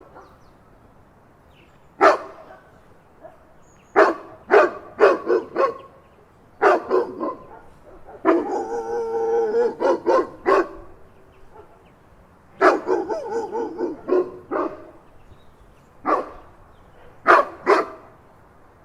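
Big dog barking in single barks and quick runs of barks with pauses between, and a longer drawn-out stretch of barking near the middle.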